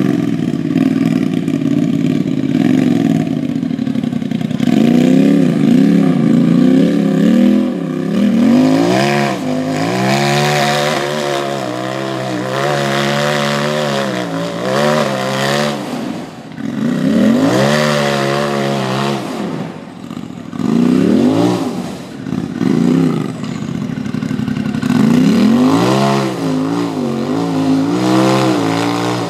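Racing side-by-side UTV engine revving hard, its pitch rising and falling over and over as the throttle is worked on and off, with brief lulls between pulls.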